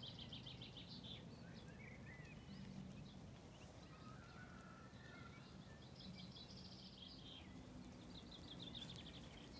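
Faint birdsong: a small bird sings a quick, high trill of rapidly repeated notes three times, with a few softer chirps in between, over a faint steady low background hum.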